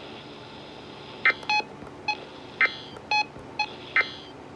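A series of about seven short electronic beeps, irregularly spaced, over a steady hiss.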